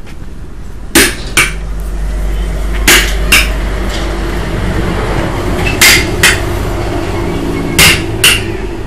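Hammer blows ringing on metal while a truck tyre is worked off its rim. The blows come in four pairs about two seconds apart, with two sharp strikes close together in each pair.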